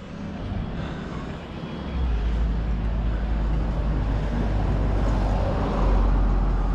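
City street traffic: vehicles running past, with a steady low rumble that comes in about two seconds in.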